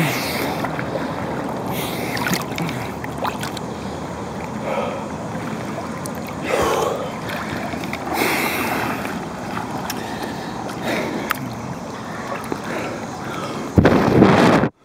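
Pool water lapping and sloshing right at a camera held at the surface, with a few brief louder splashes. Near the end come two loud, breathy blasts close on the microphone as the swimmer blows water off the lens.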